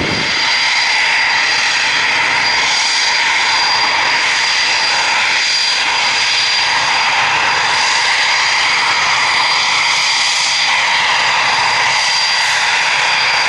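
Eurofighter Typhoon FGR4 jet engines running steadily: a loud, even rush with a constant high-pitched whine.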